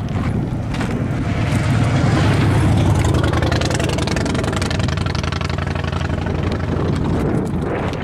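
A road vehicle driving past, engine and tyre noise growing louder to a peak about two to three seconds in, then easing off slowly.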